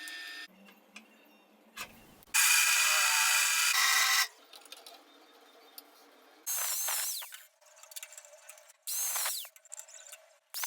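Angle grinder switched on in short bursts: one run of about two seconds, then two briefer ones with a high whine that falls away as the motor spins down. Light clicks and knocks of handling come between the bursts.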